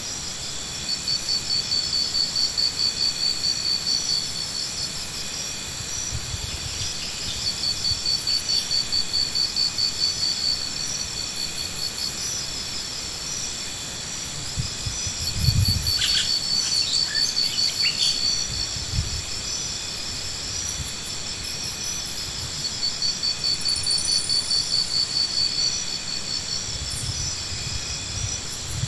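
Insects calling: several steady high-pitched trills, over which a louder pulsing trill repeats in bouts of two to three seconds, about every seven seconds. A single dull thump comes about halfway through.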